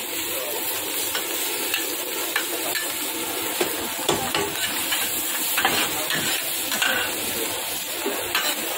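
Hawker-stall kitchen clatter: a steady hiss under frequent sharp clinks and knocks of dishes, pots and utensils.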